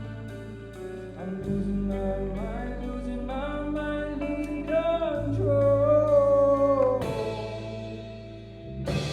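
Live band music: a singer holds long, sliding notes over guitar and steady low notes, with a sharp hit about seven seconds in and another near the end.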